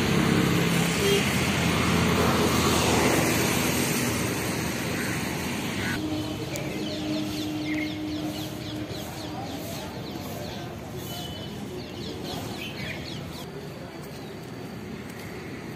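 Steady outdoor background noise, loudest in the first few seconds. From about six seconds in, birds chirp in quick, repeated high notes.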